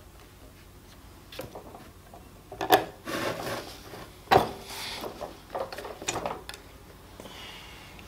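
Hand-lever grommet press pressing a magnetic snap through a sheet of material, the die folding the snap's prongs over the back washer: a sharp click, a rub of metal and material, then a loud sharp metal clack a little after four seconds, followed by rustling as the sheet is handled.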